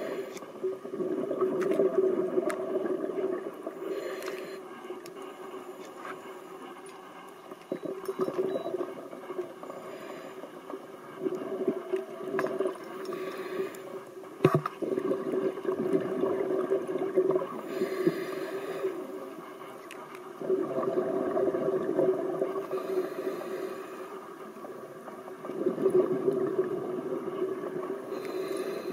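Scuba diver breathing underwater through a regulator, heard from a camera housing: exhaled bubbles gurgle in long bursts about every five seconds, with brief hissy inhalations between them. A single sharp click about halfway through.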